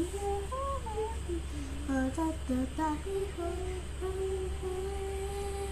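A child humming a wordless tune: a run of short notes, then one long held note from about four seconds in.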